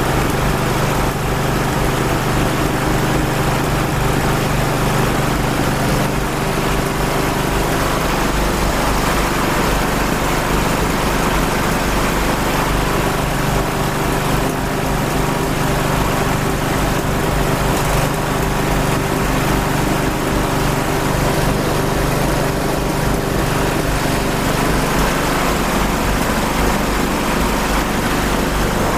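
Engine running steadily at a constant speed on a water-based fuel mixture, which its makers claim is 99% water.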